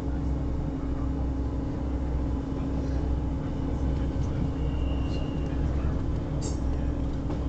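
Interior running noise of a Class 158 diesel multiple unit travelling at speed: a steady low rumble with a constant hum from the underfloor engine and running gear. A brief high tone about five seconds in and a short sharp click about six and a half seconds in.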